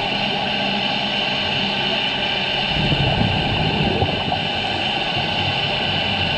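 Steady underwater drone and hiss picked up by a diving camera, with a rougher, louder low rumble for about a second and a half a few seconds in.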